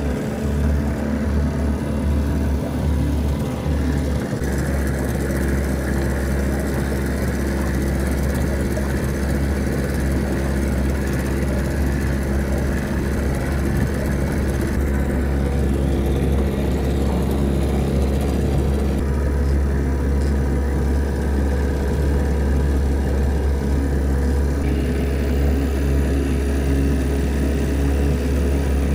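1981 Johnson Seahorse 15 HP two-stroke, twin-cylinder outboard motor idling steadily in neutral. It is a good-running motor after a carburetor cleaning and new spark plugs.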